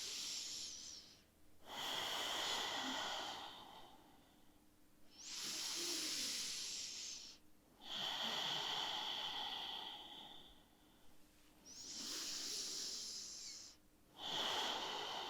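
Ujjayi breathing: slow breaths drawn in and out through the nose with the back of the throat partly closed, each making a soft, steady hiss. Six long breaths of two to three seconds each, with short pauses between them.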